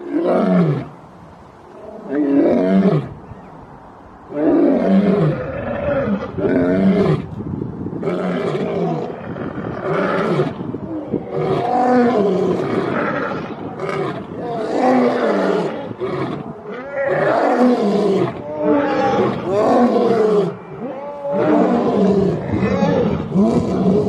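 Two male lions roaring together in a long bout. There are two separate roars near the start, then from about four seconds a near-continuous run of shorter roars, each falling in pitch, one after another.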